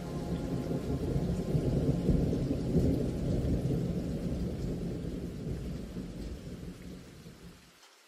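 Recorded thunderstorm ambience in the background soundtrack: low rolling thunder over rain, swelling a couple of seconds in, then fading and cutting off shortly before the end.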